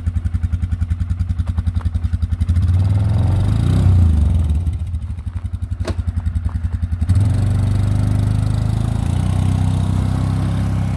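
Polaris ATV engine, close by, idling with an even pulse, then picking up as the machine pulls away. It drops back to a pulsing idle for a couple of seconds, with a sharp click about six seconds in, then runs steadily again as it drives off.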